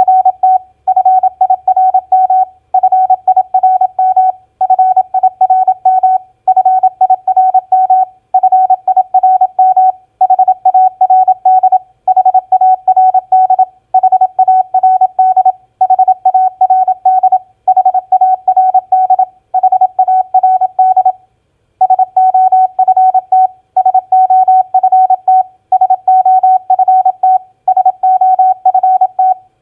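Morse code (CW) practice tone sending common four-letter words at 27 words per minute: a single steady beep keyed on and off in quick dots and dashes, with short pauses between words and one longer pause a little past the middle.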